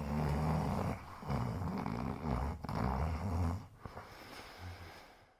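A man's rumbling snores, done as an imitation of a motorbike engine: three long runs with the pitch rising and falling, then a short one near the end.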